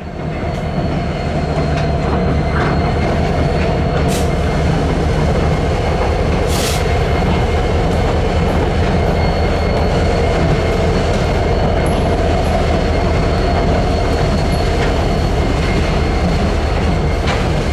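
Freight train rolling steadily past, steel wheels on the rails, with a thin high wheel squeal running through it.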